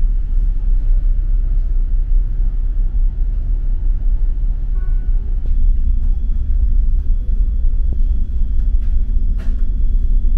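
Loud, steady low rumble of a large passenger ferry's engines carried through the hull, heard inside the ship.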